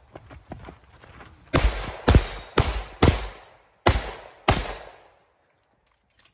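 Six gunshots, each followed by a short echo: four about half a second apart, then a brief pause and two more. A few faint clicks come before the first shot.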